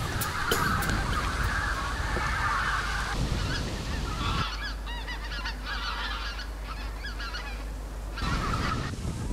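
A flock of wild geese calling in flight: a dense chorus of honking, then from about four seconds in, separate honks from fewer birds.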